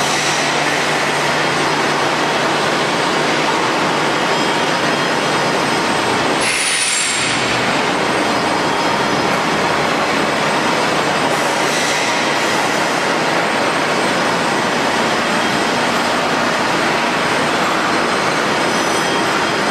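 ERW tube mill production line running: a loud, steady industrial noise of rolling and forming machinery. About six and a half seconds in, the noise briefly thins and a short high falling whine sounds.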